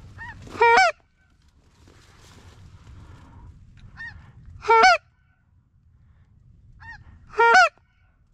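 Goose call blown three times, a few seconds apart: each a short, loud honk that breaks upward, led by a fainter lead-in note, calling to a goose circling the decoys.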